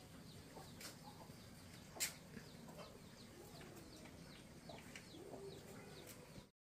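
Chickens heard faintly: many short, high, falling peeps with a few lower clucks, and a single click about two seconds in.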